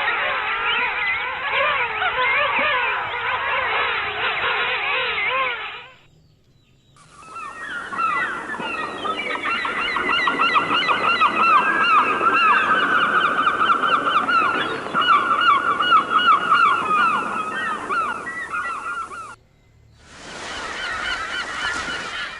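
A chorus of many birds calling at once, dense overlapping chatter with repeated wavy notes. It comes in three stretches, each cut off abruptly with a short lull between them.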